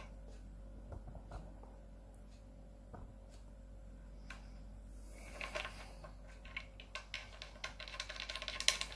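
Metal bridge stud of a Wilkinson bridge being turned by hand into its threaded insert in a guitar body: a few faint isolated clicks at first, then from about five seconds in a quick run of small metallic ticks and scrapes, densest near the end.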